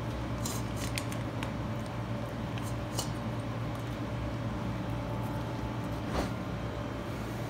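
German Shepherd puppy eating dry kibble from a stainless steel bowl: scattered sharp clicks and clinks of kibble and teeth against the metal, several in the first second and a half and single ones about three and six seconds in, over a steady low hum.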